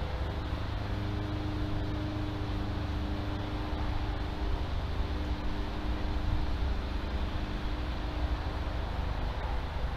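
Steady low rumble and hiss with a faint, slightly wavering hum, and no distinct events.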